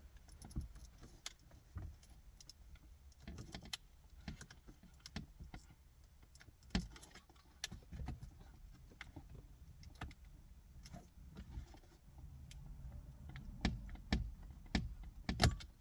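Scattered light clicks, taps and rattles as plastic dash trim and a sensor's connector are handled and squeezed at the sides to release it.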